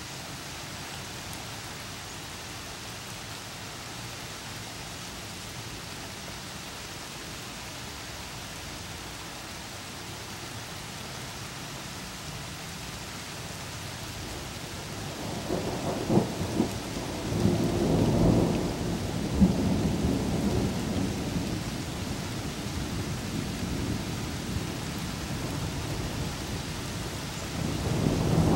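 Steady rain falling, then a long roll of thunder from about halfway through, with a couple of sharp cracks early in the roll before it rumbles away. Another roll of thunder begins near the end.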